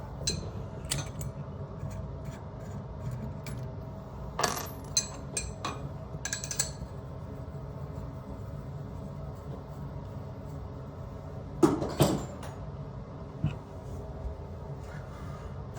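Metal hand tools and plumbing fittings being handled, giving scattered clinks and clicks. The clinks are busiest about four to six seconds in and again about twelve seconds in, over a low steady hum.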